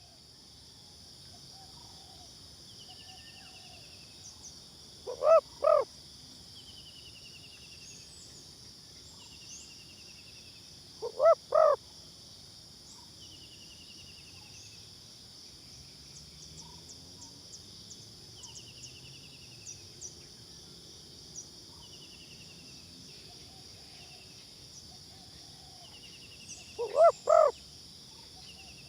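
Spotted dove cooing in three short bursts of two or three low coos each, several seconds apart, over a steady high-pitched insect drone. A faint quick descending chirp from another bird repeats about every five seconds.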